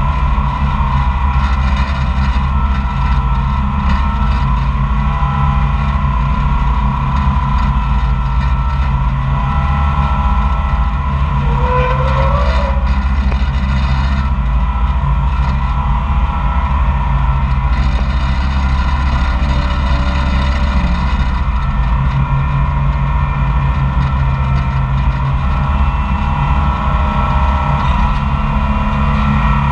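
Koehring 440 dragline's engine running steadily while the drag and hoist winches work the bucket through the pit and lift it out. A short squeal from the machinery about twelve seconds in.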